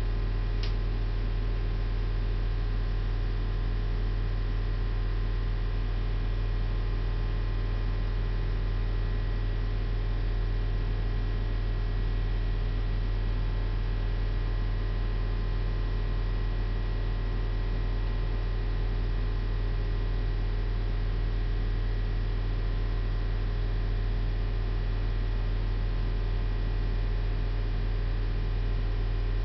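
Steady low electrical mains hum with a faint hiss, unchanging throughout; one faint click about a second in.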